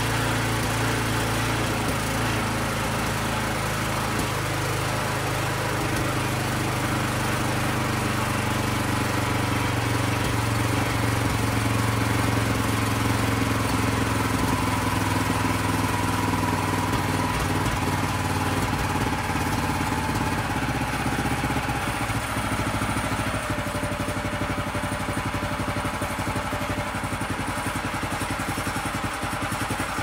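Harbor Freight Predator 212cc single-cylinder four-stroke engine running steadily through its stock muffler. Over the second half it settles to a lower, quieter running speed.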